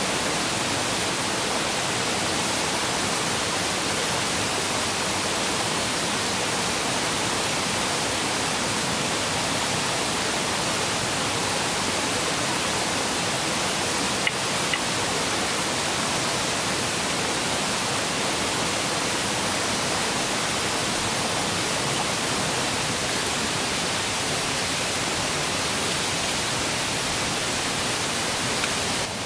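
Steady rush of flowing river water, with two brief clicks of sticks being handled about halfway through.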